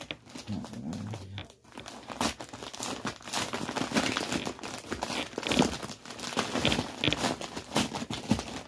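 Packaging crinkling and rustling as hands work open a mailer package, with irregular crackles throughout that grow busier about two seconds in.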